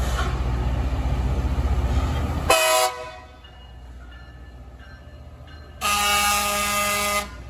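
Heavy, steady low rumble of a LORAM rail grinder train working along the track. It cuts off abruptly, and the train's horn sounds twice: a short toot, then a blast of about a second and a half near the end.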